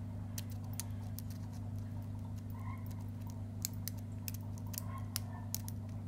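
Irregular small metallic clicks and scrapes of a snake rake being raked in the keyway of a dimple padlock against its pins, with a tension wrench holding turning pressure on the core. The clicks sit over a steady low hum.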